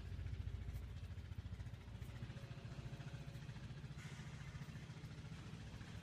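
Beiben concrete mixer truck's diesel engine idling: a steady low rumble with an even, fast pulse.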